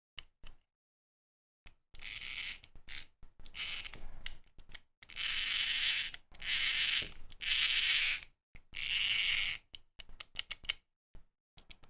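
The small gearbox from a Bandai DX Genesis Driver toy belt, a loud whirring of gears in about six short bursts as it is spun. This gearbox is what causes the belt's loud whirring noise. A few light clicks follow near the end.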